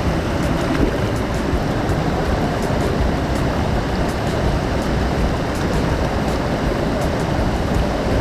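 Steady rushing of falling water from a waterfall and stream, an even noise that does not let up.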